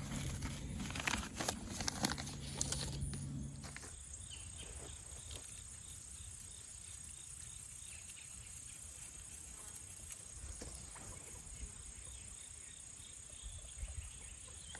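Paper rustling and small handling clicks as seeds go into a paper envelope. About three seconds in it drops to quiet outdoor background with a steady high insect drone.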